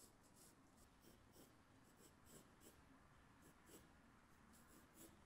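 Faint scratching of a graphite pencil on drawing paper: a series of short strokes at uneven intervals, going over the outline of a sketched sphere.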